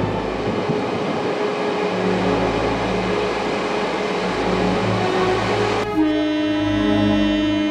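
A Taiwan Railways train rolls out of a tunnel. About six seconds in, its horn starts a long, steady blast, sounded as a mourning salute at the crash site.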